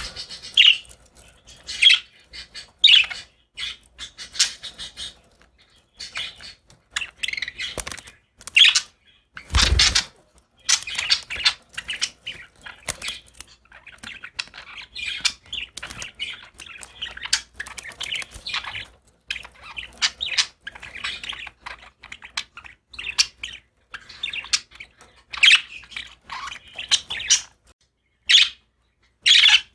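Pet budgies chirping in quick runs of short, high calls. One loud thump comes about a third of the way in.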